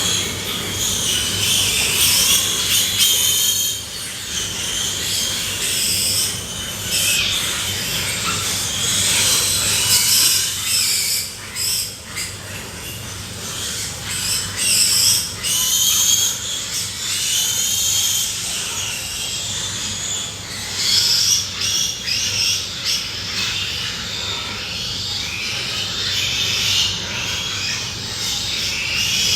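Pigs squealing: many overlapping high-pitched squeals that come and go in loudness, over a steady low hum.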